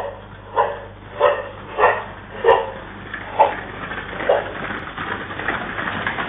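Dog barking, seven sharp barks about two-thirds of a second apart, the gaps lengthening after the fourth. In the last couple of seconds the barks give way to a busier, continuous clatter.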